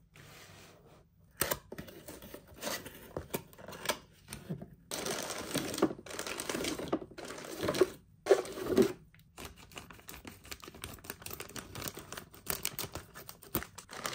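A cardboard jigsaw-puzzle box being handled and opened, its flaps scraping and tearing in several longer bursts. After that comes a dense run of small clicks and crinkles from a plastic bag of cardboard puzzle pieces.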